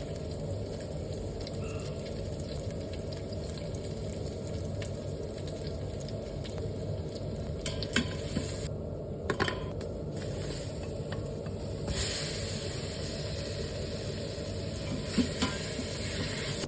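Food sizzling in a cooking pot while it is stirred, with a few sharp clinks of the utensil against the pot. About twelve seconds in the sizzle turns brighter and hissier.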